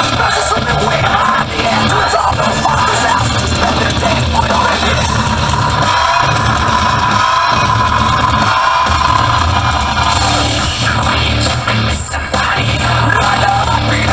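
Loud rock music with vocals, playing without a break.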